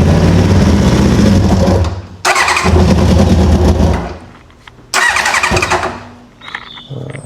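Four-cylinder motorcycle engine cranked on its electric starter three times without catching, each attempt shorter than the last and dying away, with the battery running out of power.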